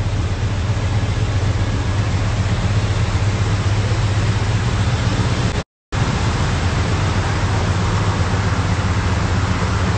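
Chevrolet C10 pickup's engine idling steadily, a constant low hum under a heavy hiss. The sound cuts out for a moment a little past halfway, then resumes unchanged.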